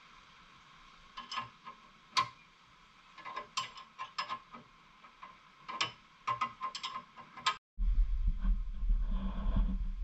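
Wrench clicking in short irregular runs on the top nut of a sway bar link, like a ratcheting wrench on its back-swings. About three-quarters of the way through, this cuts off abruptly to a steady low rumble.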